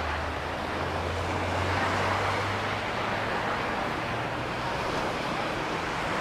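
Steady wash of surf on the beach, with a low engine drone underneath that shifts slightly in pitch about halfway through.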